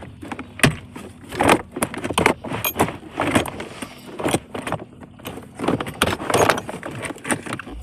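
Irregular clicks, knocks and rattles of plastic parts as the 2003 Honda Accord's blower motor housing is worked loose and lowered from under the dashboard.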